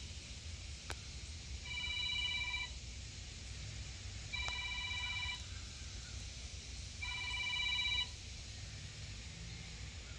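A telephone ringing: three trilled electronic rings, each about a second long, repeating every two to three seconds.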